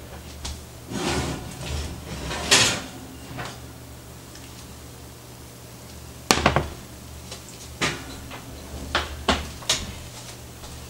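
A cast iron skillet is taken out of the oven and set down on a glass-top electric stove. There is rustling and knocking of the oven door and rack, a sharp clunk about six seconds in, and a few lighter knocks after it.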